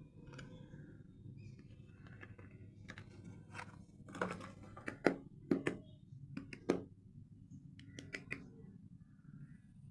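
Soap packaging being handled and unwrapped: soft rustling, then a run of sharp crinkles and clicks about halfway through and a few more near the end, over a steady low hum.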